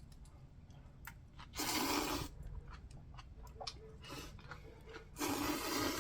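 A person eating ramyun noodles: soft chewing clicks, broken twice by a loud slurp lasting under a second.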